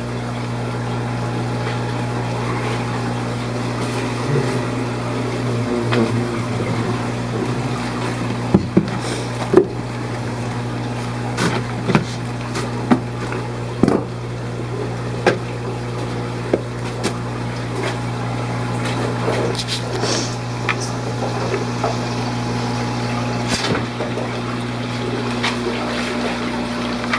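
Steady low hum of aquarium pumps, with water running, broken by a dozen or so sharp clicks and plastic rustles as fish bags are handled.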